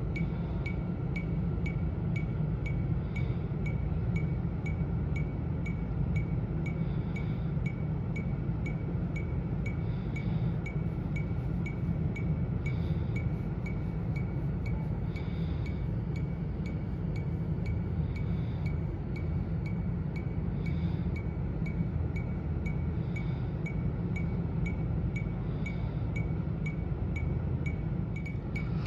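Metronome clicking at a steady tempo of about three beats a second, over a steady low rumble.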